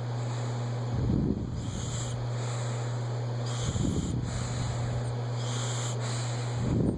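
Snoring: three rough, rumbling snores about three seconds apart, with breathy hiss between them, over a steady low hum.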